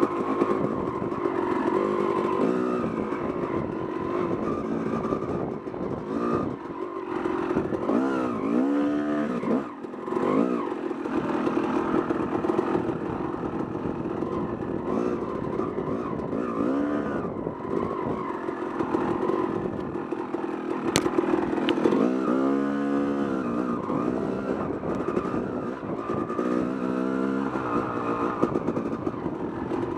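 Yamaha YZ250 two-stroke dirt bike engine, heard from on the bike, revving up and down continuously as the throttle is worked on a tight trail. The pitch rises and falls repeatedly, with the biggest swings about a third of the way in and again about three-quarters through.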